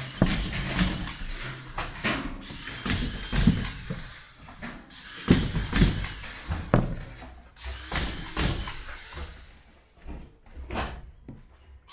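Knocks and scraping from hands-on building work, in stretches of a couple of seconds with short pauses between them, and a sharp knock near the middle.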